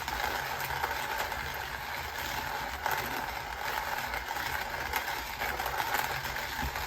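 Hand-cranked ceramic burr coffee grinder crunching whole beans, a steady rattling grind of many fine ticks, near the end of the batch.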